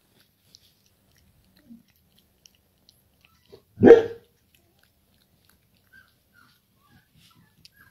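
A three-and-a-half-week-old Bernese mountain dog puppy gives one short bark about four seconds in, with faint chewing and lapping at a food bowl around it.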